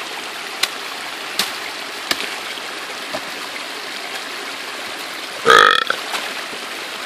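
Creek water rushing steadily through a breach in a beaver dam, with a few light clicks in the first couple of seconds. About five and a half seconds in, a short, loud, throaty vocal sound stands out over the water.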